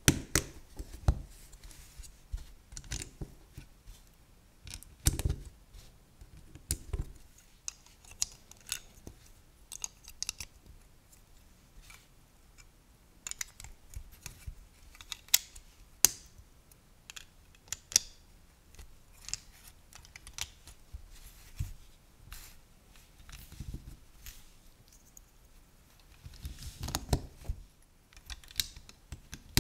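LEGO bricks being pressed and snapped together by hand: irregular sharp plastic clicks, with a denser flurry of clicks and rattling near the end.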